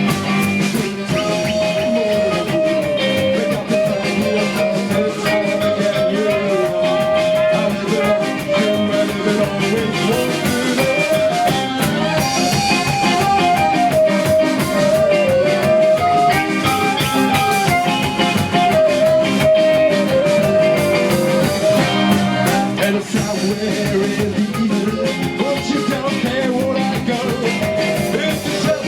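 Live rock band playing an instrumental passage: drum kit, bass and guitars, with a single lead melody line wandering over them and dropping away a few seconds before the end.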